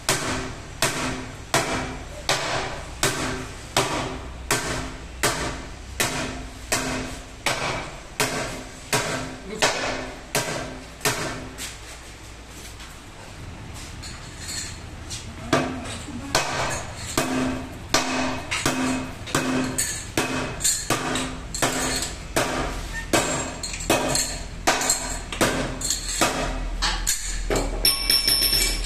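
A hammer striking the tyre bead against a steel car wheel rim, a little under two blows a second, each with a short metallic ring from the rim. This is the tyre being broken off the rim by hand. The blows stop for a few seconds midway, then resume.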